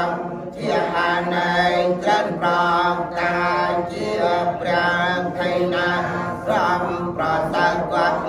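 Buddhist monks chanting together, holding a steady pitch, with brief breaks between phrases.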